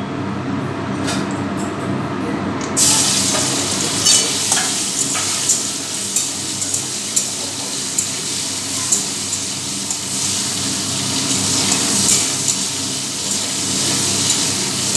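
Prawns go into hot mustard oil in a wok about three seconds in, setting off a sudden sizzle that keeps going, with frequent sharp pops of spattering oil. Near the end a spatula stirs the prawns in the pan.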